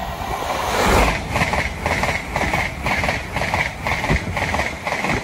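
An LNER Azuma high-speed passenger train passing close by at speed. The sound swells as the front end goes by about a second in, then the coaches follow with a rapid, even beat of wheels over the rails, about three a second.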